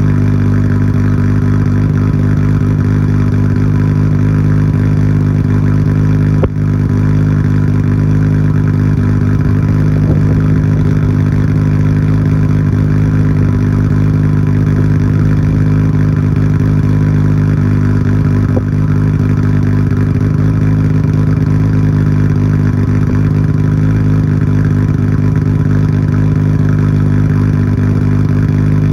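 Nissan Skyline GT-R R34's RB26 twin-turbo straight-six idling steadily through a Tomei Expreme Ti titanium exhaust with its silencer insert fitted, warming up after a cold start. There is one brief click about six seconds in.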